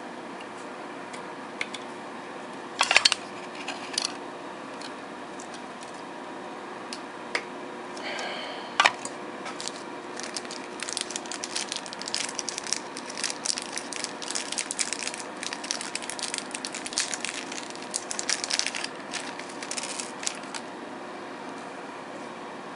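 Thin plastic packaging crinkling and crackling under the fingers while small plastic model-airliner parts are handled. There are a few sharp clicks and knocks about three, four and nine seconds in, and dense crinkling through the second half.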